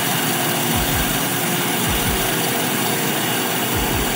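Band knife machine running, its sharpening stone grinding against the moving band knife blade: a steady, even grinding noise over the machine's running.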